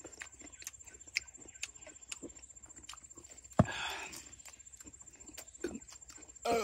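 Close-up eating sounds: wet chewing and lip-smacking clicks from people eating crispy fried chicken. About three and a half seconds in there is one sharp knock, followed by a short noisy rustle.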